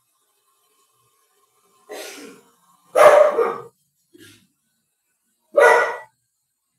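A dog barking: a few separate barks, the loudest about three seconds in and near the end.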